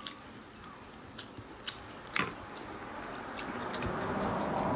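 Close-up chewing of fried chicken, with a few sharp crunchy clicks. In the second half a soft rushing noise swells up and becomes the loudest sound.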